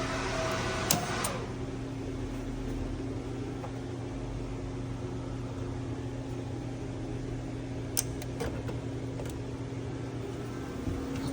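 A CNC machine humming steadily with its servo drives powered, with a few sharp clicks, one about a second in and another near 8 s. A higher steady tone stops about a second in.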